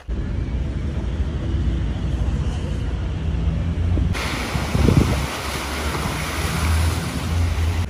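Wind buffeting the microphone, a heavy fluctuating low rumble. About four seconds in, a steady hiss suddenly joins it.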